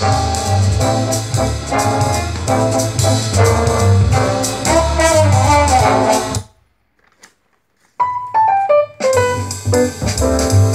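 Jazz playing through a pair of 1979 AIWA SC-61 vintage bookshelf speakers. The music stops a little over six seconds in, leaving about a second and a half of near silence, comes back with a few single notes, and the full band resumes.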